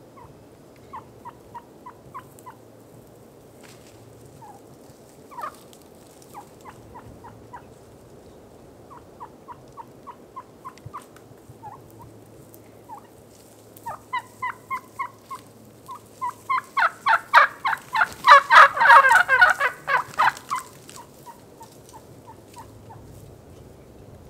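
Wild turkeys calling at close range. Runs of short, evenly spaced yelping notes come through the first half. About two-thirds of the way in, several seconds of loud gobbling from a strutting tom follow, with a few more yelps after.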